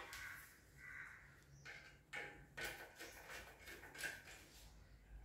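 Faint clicks and light scrapes of a screwdriver turning the screws that fix a ceiling fan blade to the motor, a handful of short ticks spread through.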